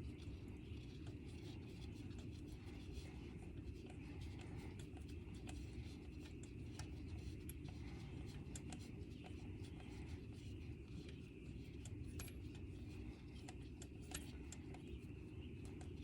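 Faint, scattered small clicks and taps of bolts and tools being handled while bolts are started by hand, over a steady low background rumble.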